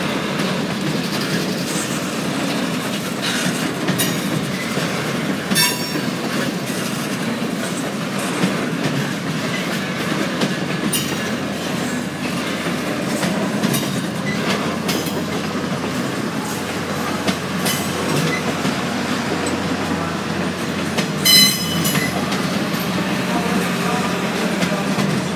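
The Canadian Pacific Holiday Train's railcars roll past close by with a steady rumble and clicking of wheels over the rail joints. Two brief high squeals are heard, one about six seconds in and a louder one near the end.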